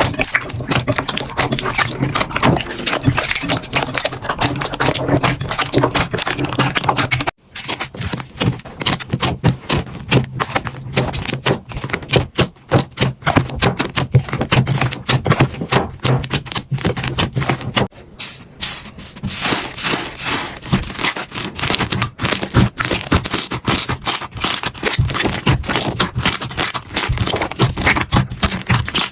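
Slime being squeezed and pressed by hand, giving a dense, quick crackling and clicking. The sound changes abruptly twice, about a third of the way through and again past the middle, as one slime clip gives way to another.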